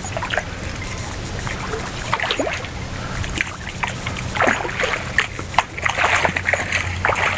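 Hooked small trevally (papio) thrashing at the water surface as it is reeled toward the shore, a run of short, irregular splashes that come thickest in the second half, over a steady low hum.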